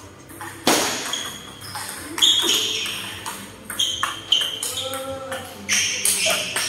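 Table tennis ball being hit back and forth in a rally: sharp pinging clicks a second or two apart, some in quick pairs, with voices in the background.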